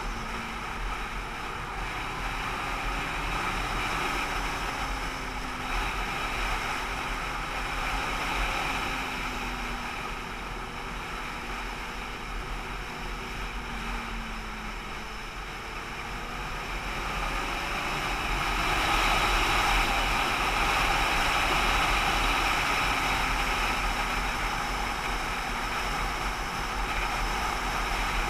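A vehicle under way on the road: steady wind and road noise over a faint engine note that rises and falls, getting louder about two-thirds of the way through.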